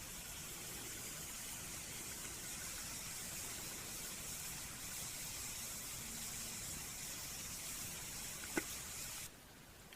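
Log campfire burning with a steady hiss, with one sharp pop a little after eight seconds in. The hiss cuts off abruptly shortly before the end.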